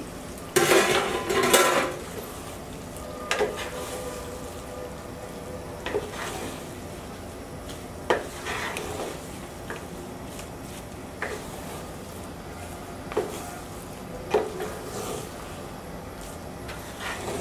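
A spoon stirring and scraping through rice and beef in a cooking pot. There is a loud scraping stretch about a second in, then occasional sharp taps of the spoon against the pot.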